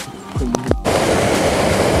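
Brief music with a falling low note, cut off abruptly a little under a second in by the steady rush of a small waterfall pouring over mossy rocks.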